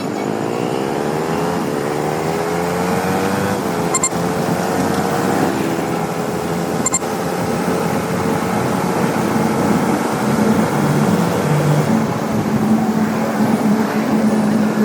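KTM 200 Duke's single-cylinder engine pulling away, its pitch rising over the first few seconds and then running steadily at cruising speed, with road and wind noise and two brief clicks.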